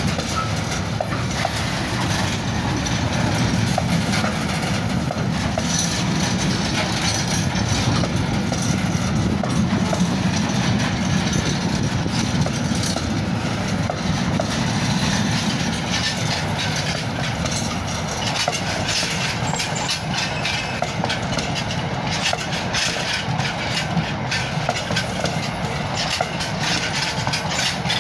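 Long freight train of Network Rail bogie box wagons rolling past close by, a steady rumble and clatter of wagon wheels on the rails.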